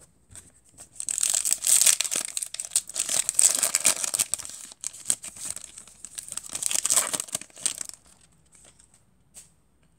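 Panini Mosaic basketball card pack being torn open by hand: the shiny wrapper crinkles and rips for several seconds, then falls quiet as the cards come out.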